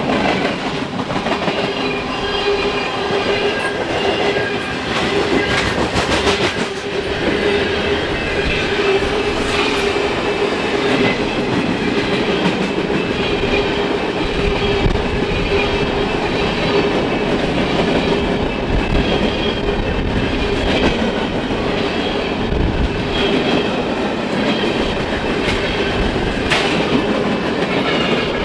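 A mixed freight train rolling past at track speed, steel wheels clicking over the rail joints, with a steady tone running under the rumble.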